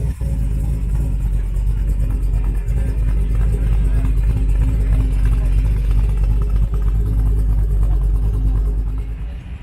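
Car engine rumbling at low speed close by. It grows louder toward the middle and fades just before the end, as if the car is moving past.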